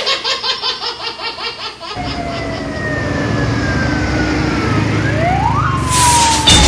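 Vehicle siren: a fast pulsing warble for about two seconds, then slow falling wails with a quick rising sweep near the end, over a steady low engine rumble.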